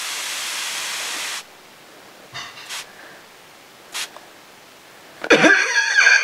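Spray bottle hissing out a long spray that stops about a second and a half in, followed by two brief faint spritzes. Near the end comes a loud, high squealing cry, the loudest sound here, its pitch bending up and down like a voice.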